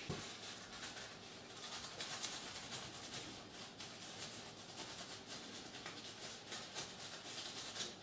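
A paper cloth with alcohol rubbing old thermal paste off a graphics card's GPU die: faint, scratchy rubbing with many small scrapes that comes and goes.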